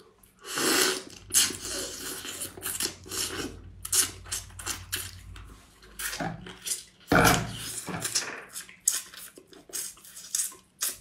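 Close-up cracking, crunching and sucking as a cooked sea crab's shell is broken apart and the meat is eaten, with irregular clicks and crackles throughout.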